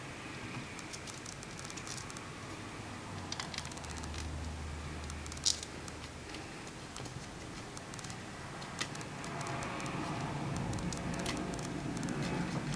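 Origami paper rustling and crinkling as hands crease and shape a folded unit close to the microphone, with scattered sharp paper clicks, the loudest about five and a half seconds in.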